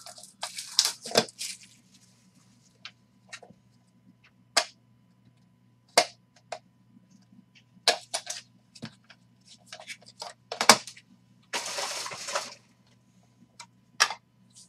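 Hands opening a trading-card box and handling hard plastic card holders: scattered clicks, taps and light knocks of plastic, with about a second of rustling a little before the end.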